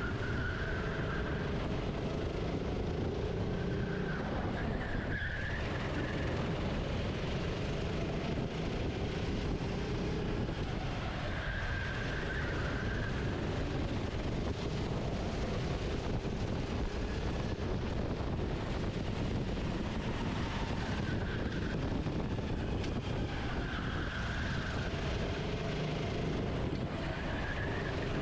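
Racing kart engine heard from an onboard camera, its pitch rising and falling every few seconds as the kart accelerates out of corners and slows into them, over a steady rush of wind and tyre noise.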